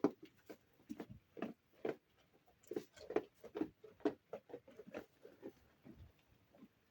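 Sheep eating wheat: a run of short, irregular crunching and rustling sounds, a few a second.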